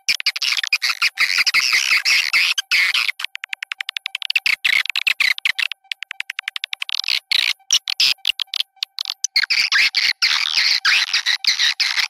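Swiftlet calling-sound recording, the lure played to draw swiftlets into a nest house: dense, chattering swiftlet chirps, broken by fast runs of rapid clicks in the middle. A faint steady tone runs underneath.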